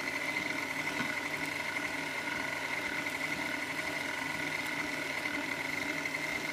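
KitchenAid stand mixer's motor driving its food-grinder attachment, running with a steady, even whine. The large turkey chunks are barely feeding through the grinder yet.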